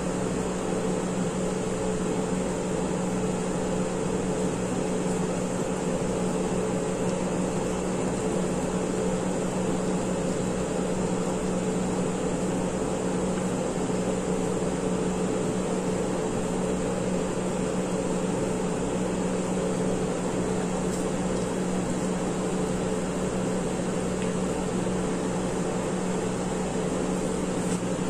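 Steady, unchanging machine-like hum with a hiss over it, holding two low tones, with no knocks or changes.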